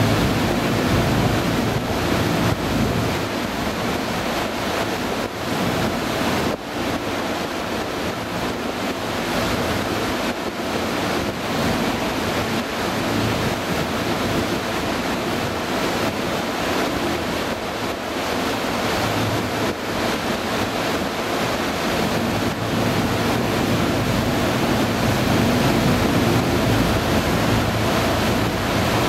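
Wind buffeting the microphone over a steady rush of water and a low engine hum, heard from aboard a moving harbour tour boat.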